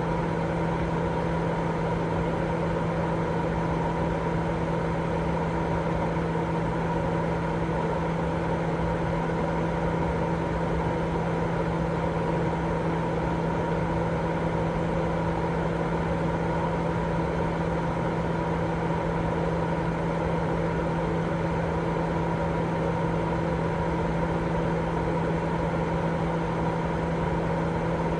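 Continuous white-noise sleep sound: an even, unchanging rushing noise, deeper rather than hissy, with a steady low hum running through it.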